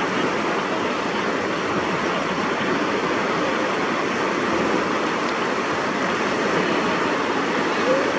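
Fast whitewater river rapids rushing steadily.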